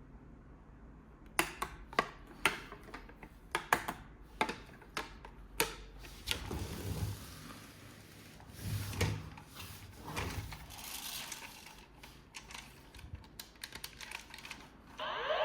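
Hard plastic toy parts being handled: a run of sharp, irregular clicks and clacks, then softer rubbing and rustling, then more scattered clicks.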